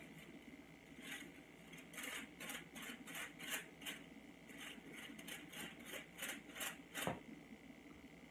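Soft, quiet scraping strokes of a tint brush drawn over hair laid on a sheet of foil, about two to three strokes a second, with a slightly sharper tap just after seven seconds.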